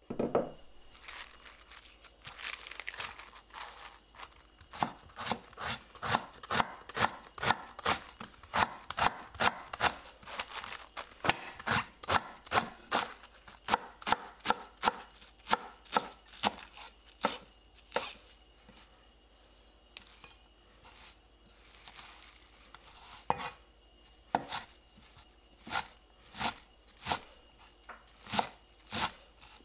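Kitchen knife chopping napa cabbage on a wooden cutting board: a long run of crisp, regular chops, about one to two a second, with a short slower stretch past the middle.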